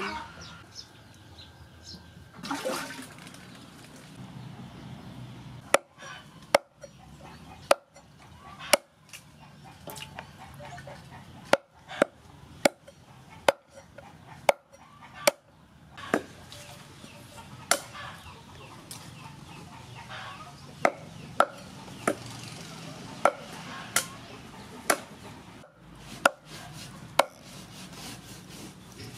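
Cleaver chopping chicken feet on a wooden chopping board. Starting about six seconds in, sharp single knocks come irregularly, one or two a second.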